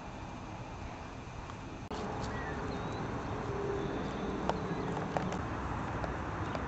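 Outdoor ambience: a steady rushing noise that gets louder about two seconds in, with scattered faint clicks and a few short, high chirps.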